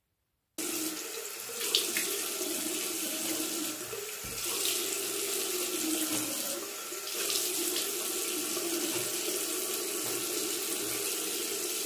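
Bathroom tap running steadily into a sink, cutting in abruptly about half a second in, with a brief louder splash about two seconds in.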